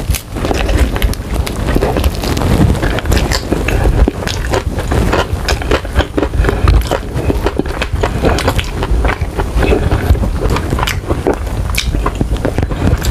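Close-miked chewing of sticky, sauce-glazed chicken wings: continuous mouth sounds with many short wet clicks and smacks.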